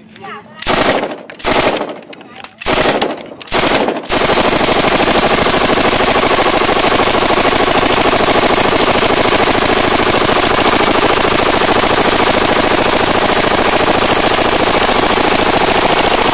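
M249 light machine gun firing 5.56 mm rounds: a few short bursts in the first four seconds, then one long unbroken burst of rapid fire from about four seconds in. It is sustained fire of the kind that overheats the barrel.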